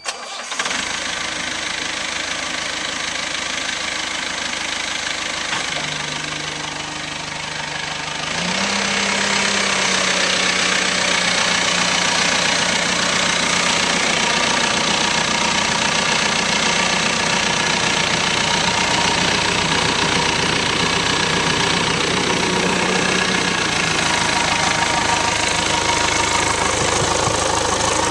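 The Perkins 90 hp diesel engine of a 2004 Terex 760 backhoe loader running. About eight seconds in it speeds up and gets louder, then holds at the higher, steady speed.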